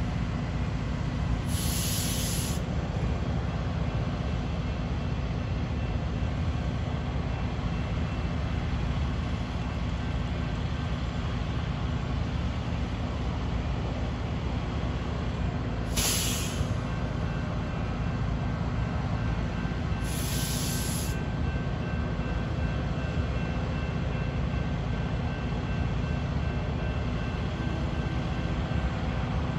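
Metra commuter train standing at the platform, giving a steady low rumble. Three short hisses of air, typical of air brakes, come about two seconds in, at about sixteen seconds and at about twenty seconds.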